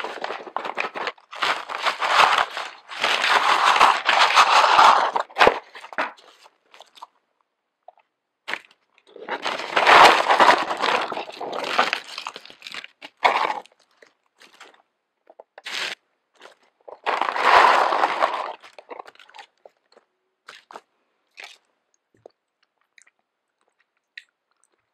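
McDonald's paper takeout bags and paper-lined cardboard box being handled: paper rustling and crinkling in three long spells, with short clicks between and only faint ticks near the end.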